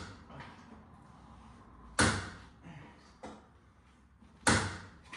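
Sharp knocks: two loud ones about two and a half seconds apart, with a fainter one between them, each dying away briefly.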